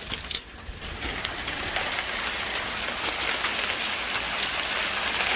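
Hail coming down hard: a dense patter of sharp ticks from hailstones striking surfaces over an even hiss, growing gradually louder.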